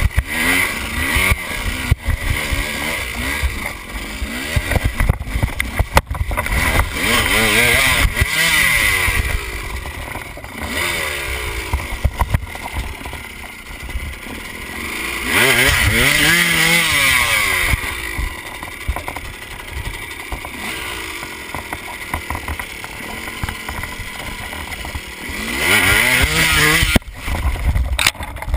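KTM enduro motorcycle engine revving up and down as the bike picks its way over a rocky trail. The throttle opens hard three times, about eight, fifteen and twenty-six seconds in, with sharp knocks from the bike striking rocks.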